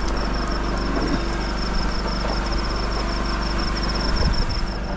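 An engine running steadily, with a fast, regular, high-pitched pulsing over it and a couple of low knocks about four seconds in.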